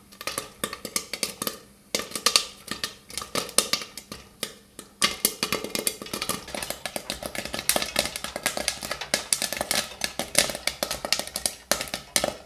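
Popcorn kernels popping in hot oil in a covered wok: a crackle of sharp pops that comes thicker and faster about five seconds in, as most of the kernels burst.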